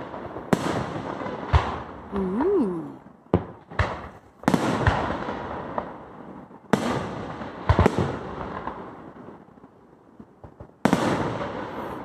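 Aerial fireworks shells bursting one after another: sharp bangs every second or two, each trailing off in a rumbling echo that lasts a second or more. After a brief lull, a loud bang comes near the end.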